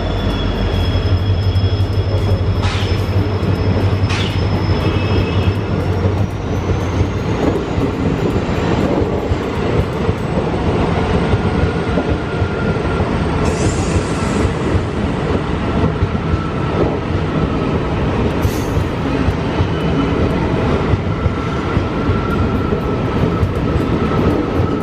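A long express passenger train's coaches run past at speed, making a steady, loud rolling roar with the clatter of wheels over rail joints. A thin, high wheel squeal rises in pitch a few seconds in, and a low hum fades out after about seven seconds.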